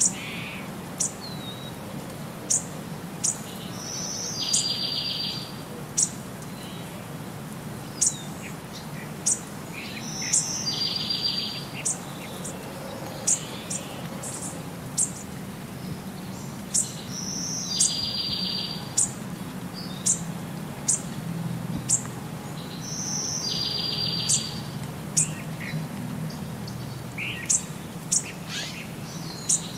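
Looped birdsong: short high chirps about once a second, with the same buzzy trill and whistle coming round every six or seven seconds, over a steady low hum.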